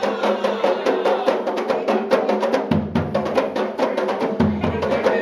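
Kompang frame drums slapped by a group in a fast, dense, steady rhythm.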